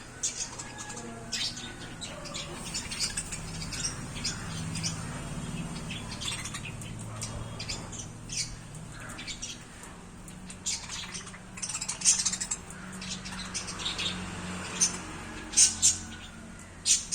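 Pet budgerigars chirping: a string of short, high chirps with a few louder ones near the end.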